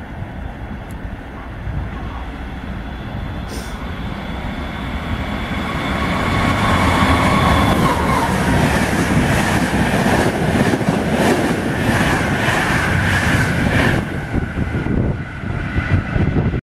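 A Eurostar Italia passenger train approaches and runs through the station at speed. A rising rush turns loud about six seconds in, then comes a rapid clatter of wheels over the rails with a steady high whine as the coaches pass. The sound cuts off suddenly near the end.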